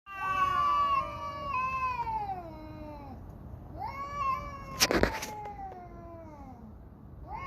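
Fighting cats caterwauling: long drawn-out yowls that slide down in pitch, the first lasting about three seconds, the next starting about four seconds in with a short harsh noisy burst near its middle, and another yowl starting at the end.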